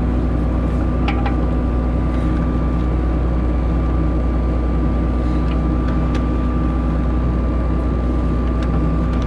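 Claas Lexion 670 combine harvester's diesel engine running steadily at idle, a constant low drone with a steady whine over it, and a few faint clicks.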